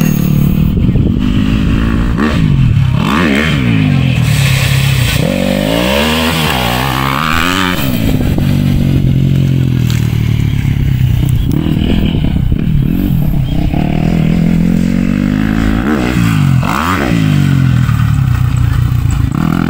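Dirt bike engine running hard on a motocross track, its pitch swinging up and down over and over as it revs, shifts and passes.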